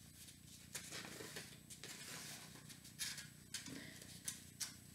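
Faint rustling of paper plates with a scatter of short scratchy clicks as pipe cleaners are pushed through punched holes in the plates.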